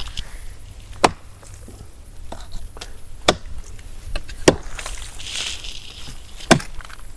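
Wood knocking: the hollow trunk of a large fallen gum tree struck four times, sharp single knocks about one to two seconds apart.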